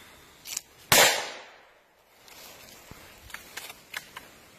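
A single scoped rifle shot about a second in, its report echoing briefly through the surrounding woods, followed later by a few light clicks.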